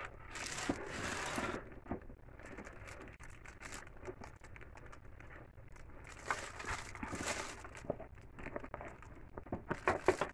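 Paper and plastic packaging crinkling and rustling in several bursts while a handbag is handled and opened out, with scattered light clicks and taps in between.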